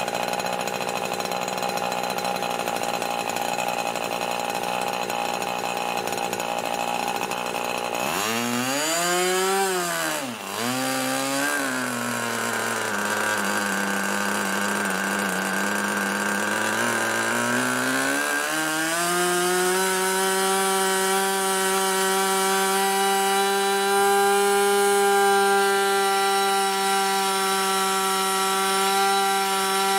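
Moki 61 LS two-stroke glow engine with a 12x6 prop running on a test stand on its first run. It runs slowly at about 3,500 rpm, then about eight seconds in the revs rise sharply, swing up and down and settle; a little past halfway the pitch steps up again as the needle is leaned, holding a steady high note at about 11,000 rpm.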